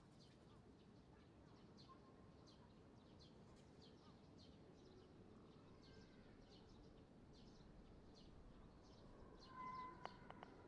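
Faint outdoor ambience: a low steady background hum with short high chirps repeating about twice a second. Near the end a brief tone sounds, followed by a few sharp clicks.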